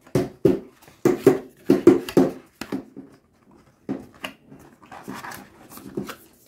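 A dog barking: a quick run of short barks in the first three seconds, then a few fainter ones.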